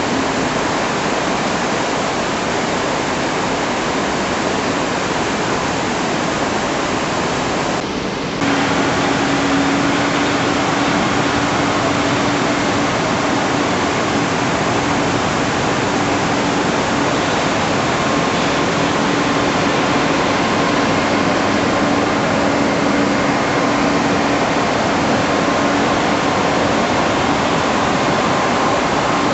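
Steady loud rushing of water, a continuous even roar. After a short break about eight seconds in, a steady low hum runs beneath it.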